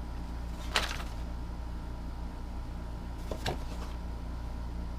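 A few brief rustles and clicks of a subscription box's contents being handled, once about a second in and twice around three and a half seconds in, over a steady low background hum.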